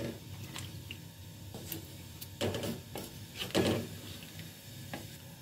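Wooden spatula stirring chicken pieces through thin, watery curry in a metal pot: sloshing and scraping strokes, with two louder swishes a little past the middle, over a steady low hum.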